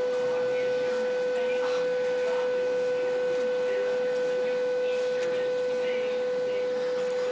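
A steady, single-pitch electronic-sounding tone that holds unchanged throughout, with faint scattered rustles and knocks underneath.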